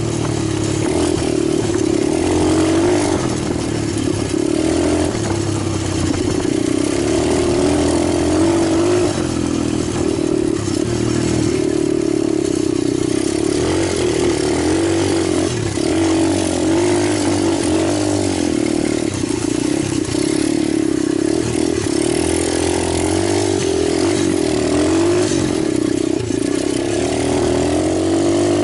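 Italjet 125 cc pit bike engine running continuously, its pitch rising and falling a little with the throttle.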